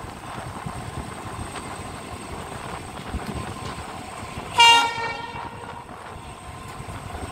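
Indian Railways passenger train running, a steady rumble with wind on the microphone, and one short blast of the locomotive's horn about four and a half seconds in.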